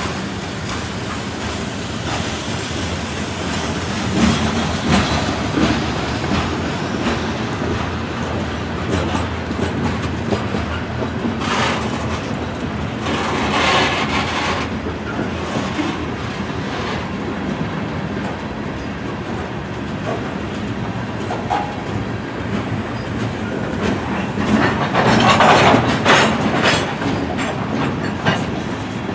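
Freight train of covered hopper cars rolling past close by: a steady rumble of steel wheels on rail with the clickety-clack of trucks over the rail joints, swelling into louder, sharper clattering twice, near the middle and again near the end.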